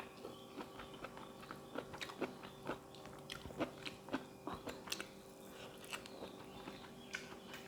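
A person chewing and crunching mouthfuls of spicy seafood salad with raw vegetables, close to the microphone: a run of irregular crisp crunches and wet mouth clicks.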